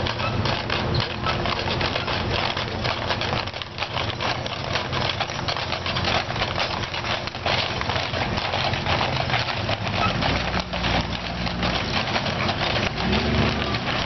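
Hooves of a team of Clydesdale draft horses clip-clopping on the street pavement as the hitch walks past pulling a wagon, many strikes overlapping in a continuous patter.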